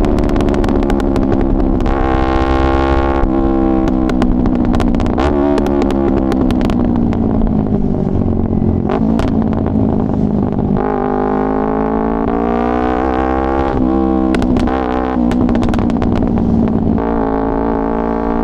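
Yamaha R3's parallel-twin engine through an Akrapovic full-system exhaust. The note slides down through the revs and climbs again twice, about eleven and seventeen seconds in, with sharp pops and crackles from the burble tune.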